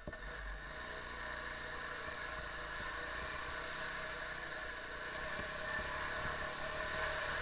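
Quad bike engine running under throttle as the ATV moves along a muddy track, with a steady hiss over it. The engine picks up right at the start and gets louder again near the end.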